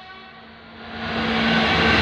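Class 66 diesel-electric locomotive with its two-stroke V12 running, drawing close and passing, with wheel and rail noise. Engine and wheel noise grow steadily louder over the second half, with a steady low hum under them. At the start the tail of a typhoon horn blast fades away.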